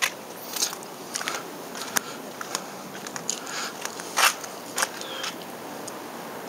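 Footsteps with scattered small clicks and scuffs, irregularly spaced about one or two a second, over a faint steady hiss.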